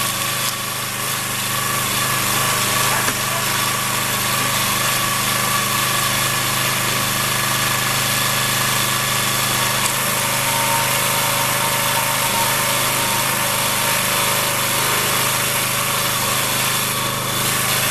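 Log splitter's small engine running steadily at a constant speed while oak rounds are split.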